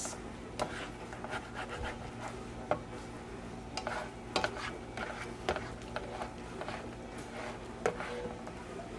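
A utensil stirring and scraping scrambled eggs with sausage, onions and mushrooms around a frying pan, making irregular light scrapes and taps against the pan.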